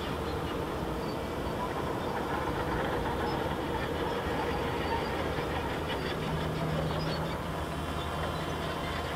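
C1 Chaser flying wing's electric motor and propeller running steadily in flight, a constant whir mixed with wind rush, heard from a camera on board the plane.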